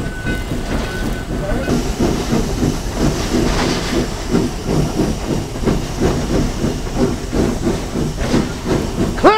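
Steam hissing in the cab of the Virginia & Truckee's oil-fired #29 steam locomotive as it runs, over a steady rhythmic pulsing from the moving engine. A brighter, higher hiss joins in about two seconds in.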